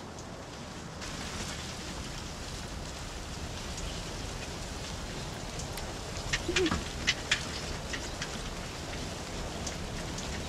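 A burning match flame, hissing steadily with a few sharp crackles about six to seven seconds in.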